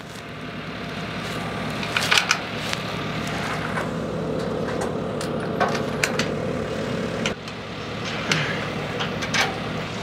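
An engine running steadily, swelling over the first few seconds and dipping briefly near the end. A few light metal clicks and taps come over it as lap bolts and nuts are fitted through the purlin lap.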